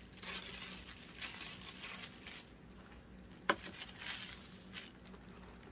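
Cosmetics gift-box packaging crinkling as it is handled, with a sharp click about three and a half seconds in.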